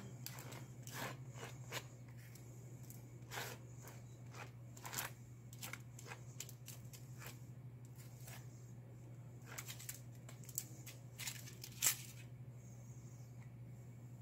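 A small hand spreader scraping and smearing epoxy over a carbon fiber stitch on a sheet of cardboard: irregular short scrapes and rustles, with a steady low hum underneath.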